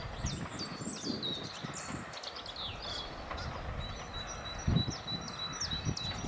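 Songbirds singing and chirping, with many quick high notes and a repeated whistled note in the second half. Wind rumbles on the microphone underneath, with one brief louder low bump a little before five seconds in.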